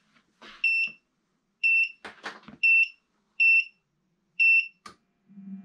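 Dripex walking pad's start-up countdown: a string of short electronic beeps, about one a second. Near the end the belt motor starts up with a low hum.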